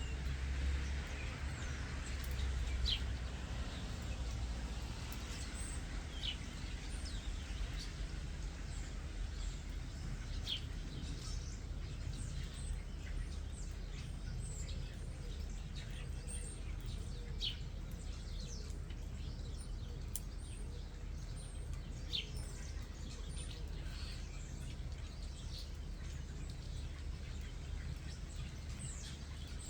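Starlings giving scattered short, high chirps and whistles, a few seconds apart, over a steady low background rumble.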